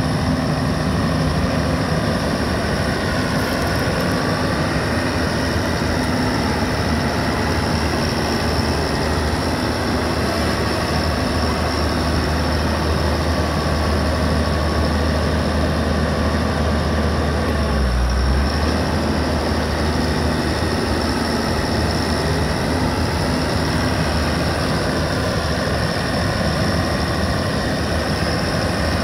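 RoGator 1254 self-propelled sprayer's diesel engine idling steadily.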